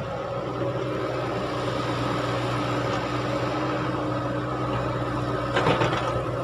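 Caterpillar tracked excavator's diesel engine running steadily with a hum, a little louder from about half a second in as the loaded boom swings. Near the end, a brief rush and clatter of soil dropping from the bucket into the dump truck bed.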